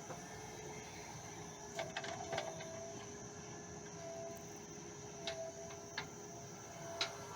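JCB backhoe loader working: a steady machine whine, with a higher tone that swells and drops away every second or two and several short sharp knocks or clanks.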